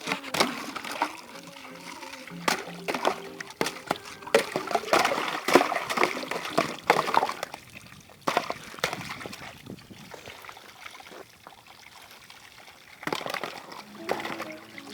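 Water splashing and sloshing in irregular bursts, quieter for a few seconds in the second half.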